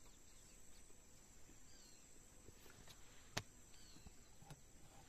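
Near silence: a faint outdoor background with a steady high insect-like whine and a few faint bird chirps, broken by one sharp click about two-thirds of the way through.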